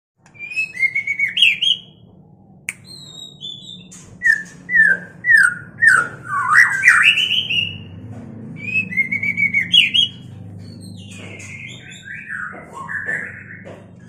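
White-rumped shamas (murai batu) calling: short whistled phrases that glide up and down, in several bursts with brief pauses between, over a faint low hum.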